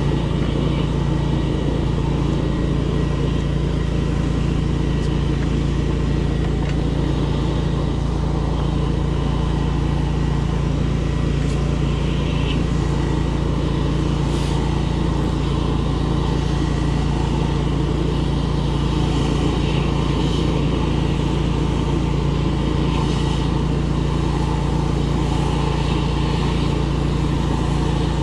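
Drain jetter's engine and pump running steadily at a constant pitch while the jetter hose is fed into the drain.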